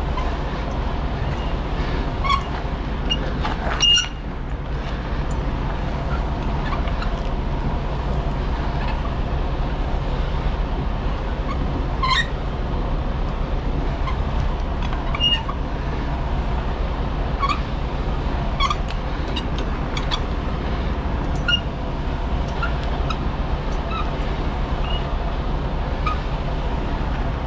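Semi truck's diesel engine idling with a steady low rumble, with scattered short high chirps and a few sharp clicks over it.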